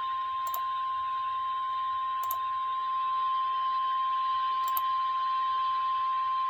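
NOAA Weather Radio 1050 Hz warning alarm tone: one steady, high pitched tone over faint radio hiss with a few soft clicks. It is the signal that a weather warning broadcast is about to follow.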